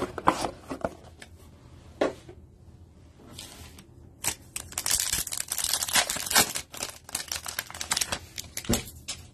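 Foil trading-card booster packs tapped and shuffled into a stack on a wooden table, then a foil pack crinkling and crackling as it is torn open, busiest from about halfway through.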